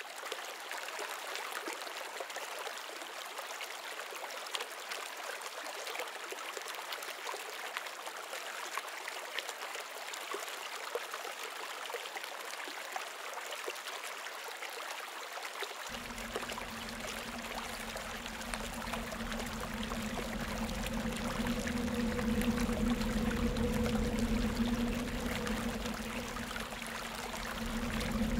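Running, trickling water, a steady hiss. About halfway through, a low steady hum comes in beneath it and the sound grows a little louder.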